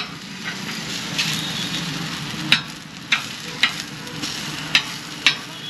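Metal spatula chopping an uttapam on a hot flat griddle: a series of sharp metallic clacks, the loudest about five in the second half, over a steady sizzle of frying.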